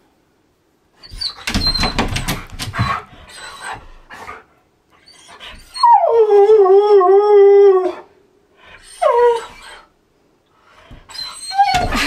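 Husky-malamute cross howling a long, wavering 'woo' of welcome for about two seconds in the middle, followed by a short falling whine. Bursts of rough noise come before the howl, and more noisy sounds near the end as he paws at the door.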